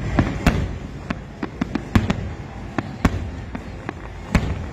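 Aerial fireworks shells exploding in an irregular string of bangs, with the loudest bursts about half a second, two, three and four and a half seconds in and smaller cracks between them.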